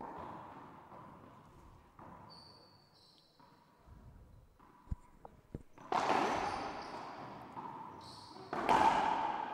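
Racquetball rally in an enclosed glass-walled court. A few light ball bounces and knocks are followed by two loud, echoing cracks of the ball off racquets and walls, about six and about eight and a half seconds in. Short squeaks of court shoes on the hardwood floor come between them.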